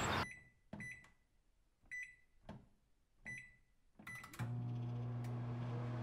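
Microwave oven: a handful of short keypad beeps, a few clicks, then the oven starts up with a steady low hum a little over four seconds in. Outdoor park noise is cut off just before the beeps begin.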